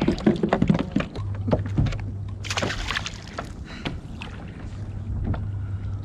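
Knocks, clatter and brief splashes on a fishing kayak, likely the just-landed fish being handled aboard. A low steady hum starts about a second in.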